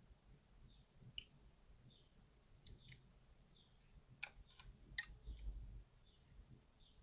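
Small metal parts and tools clicking as a pin-tumbler lock cylinder is taken apart: a handful of sharp, scattered clicks, the loudest about five seconds in.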